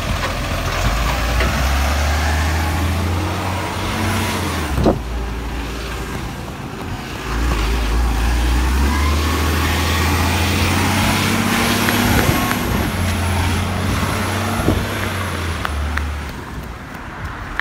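Recycling truck's engine running, easing off for a couple of seconds about five seconds in, then pulling harder again with a whine that rises slowly in pitch. A sharp click sounds about five seconds in.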